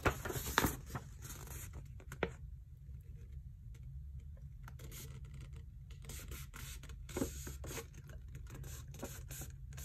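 Glossy paper fold-out insert being handled and unfolded: rustling and scraping with sharp crinkles in the first two seconds and again around six to seven seconds in.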